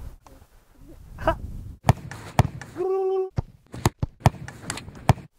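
Soccer ball being kicked, several sharp separate thumps, with a brief held vocal note about halfway through.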